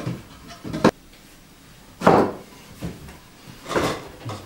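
Wooden floorboards knocking and scraping as they are handled and shifted into place on a wooden floor: three sharp knocks, the loudest about two seconds in.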